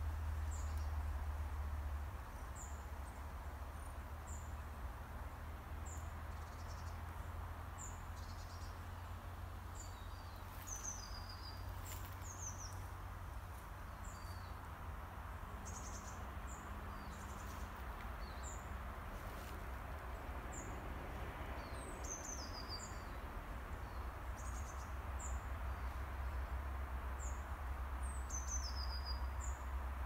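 Small songbirds calling in woodland, short high chirps every second or two with a few falling trills, over the steady hum and low rumble of road traffic that never lets up.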